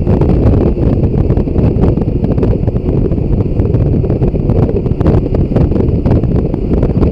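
Wind rushing and buffeting over the microphone on a motorcycle at cruising speed. It is a loud, fluttering, low rumble with no break.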